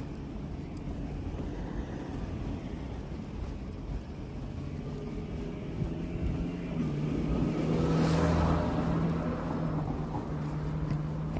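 A car passing by, growing louder to a peak about eight seconds in and then fading, over a steady low outdoor rumble.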